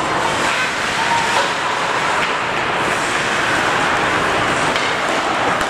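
Steady hiss and rumble of an indoor ice rink during a hockey game: skates on the ice and general arena noise, with no clear single hits.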